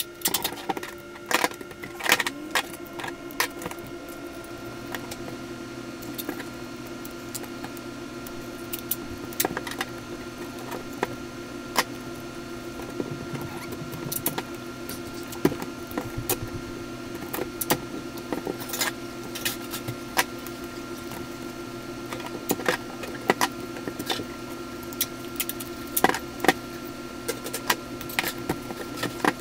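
Hands working cardboard and duct tape: scattered clicks, taps and crinkles over a steady hum.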